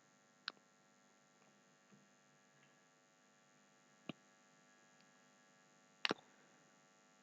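Near silence with a faint steady electrical hum, broken by three short faint clicks.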